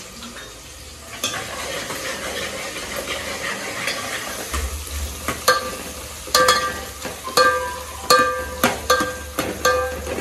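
Sliced onions and green chillies sizzling in hot oil in an aluminium pot while a metal ladle stirs them. From about halfway on, the ladle knocks against the pot again and again, one or two knocks a second, each ringing briefly.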